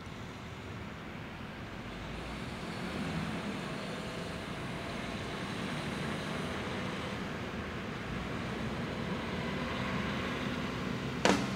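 Steady outdoor road-traffic noise, a hiss with a low rumble that slowly grows louder. A sudden sharp hit comes just before the end.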